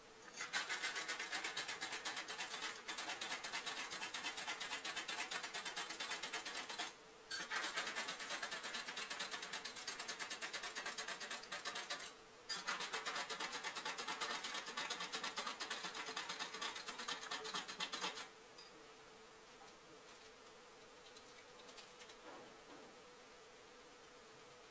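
Handheld electric milk frother buzzing as it whips a drink to foam in a mug, in three runs of about six, five and six seconds with brief stops between, then switched off after about 18 seconds.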